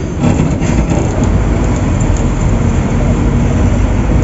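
Engine and road noise of a moving NBSTC bus heard from inside the cabin, a steady rumble with a few rattles in about the first second and a half.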